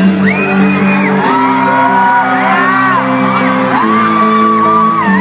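Live rock band playing loud through a concert PA, heard from within the audience, with steady held chords underneath. Several voices in the crowd whoop and shout over it, their cries sliding up and down in pitch.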